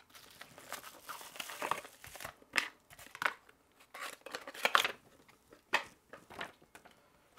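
Foil bubble-wrap packaging crinkling as the wrapped light is lifted out of a small cardboard box. This is followed by scattered sharp rustles and crackles as the cardboard box and a paper instruction booklet are handled.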